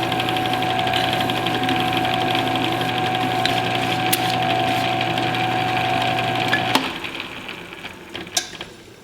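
Metal lathe motor running steadily while a file is held against the spinning aluminium workpiece. The lathe is switched off about seven seconds in and the sound dies away, followed by a sharp click near the end.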